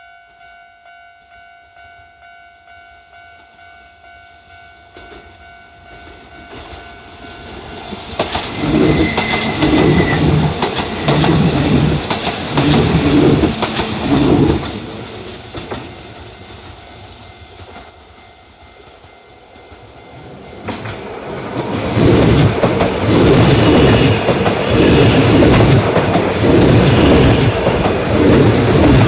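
A level-crossing alarm rings with a steady pulsing electronic tone. Then two Kintetsu trains, a 30000-series limited express and an 8A-series + 1252-series express, pass one after the other with their wheels clattering over the rail joints: the first from about eight seconds in, the second from about twenty-two seconds in. A brief high horn note sounds early in the first pass.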